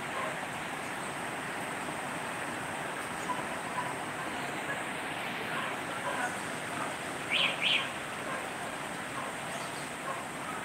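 Steady hiss of heavy tropical-storm rain, with two short high bird chirps a little past the middle.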